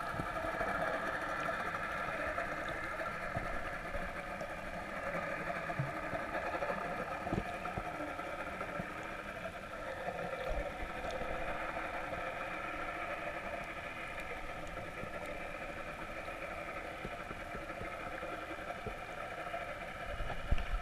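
A boat's engine running steadily, heard underwater: a hum of several held tones over a low rumble.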